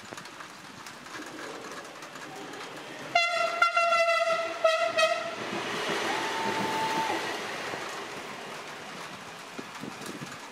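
A CRRC Sifang diesel-electric multiple unit sounds its horn about three seconds in, one loud two-second blast broken by short gaps. It then runs past with a rush of wheel and engine noise, with a brief higher tone in it, and fades away.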